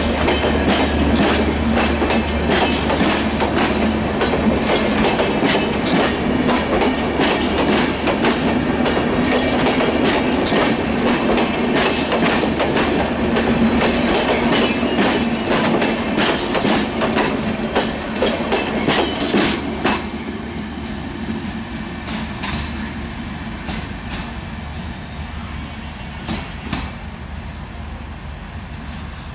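Maitree Express's air-conditioned passenger coaches rolling past close by, wheels clattering over the rail joints with a steady low hum underneath. About twenty seconds in, the noise drops away suddenly and then carries on more quietly, fading.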